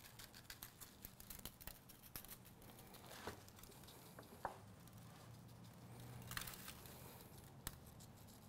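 Faint, light ticking of dry barbecue rub being shaken from a seasoning shaker onto a raw pork shoulder. The ticks come in a quick run for the first couple of seconds, then thin out to a few slightly louder clicks.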